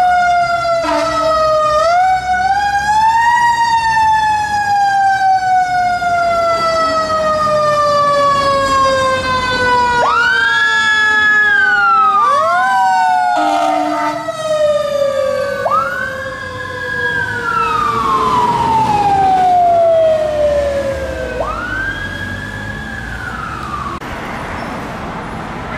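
Fire engine siren wailing over the truck's engine. Each wail sweeps up quickly, holds briefly, then falls slowly over several seconds. This repeats about five times, with new rises starting before the last fall ends, and it fades near the end.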